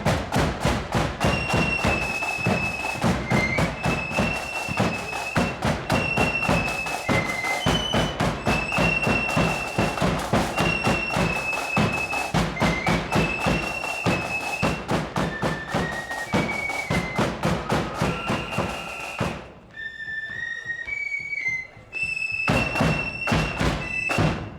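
Marching flute band playing a tune: flutes carry the melody over rapid snare drumming and bass drum beats. About twenty seconds in the drums stop for a couple of seconds, leaving the flutes alone, then come back in near the end.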